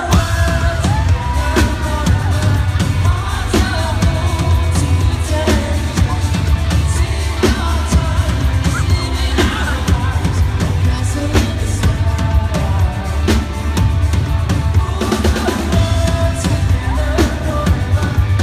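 Live rock band playing loud through a venue PA: a drum kit with steady kick and snare hits, electric guitar, a heavy low end and a male lead vocal.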